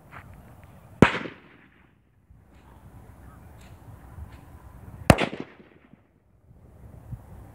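Two rifle shots about four seconds apart, each a sharp crack followed by a short echoing tail.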